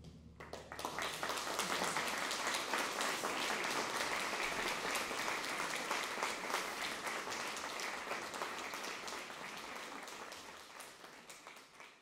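Audience applauding, starting about half a second in and tailing off near the end.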